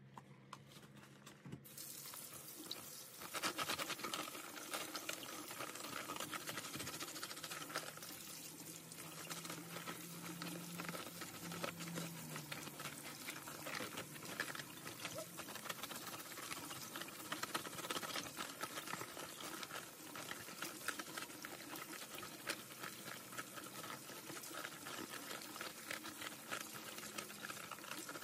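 Kitchen faucet turned on about two seconds in and running steadily onto sweet potatoes in a colander, with water splashing as rubber Tater Mitts peeling gloves scrub the skins under the stream.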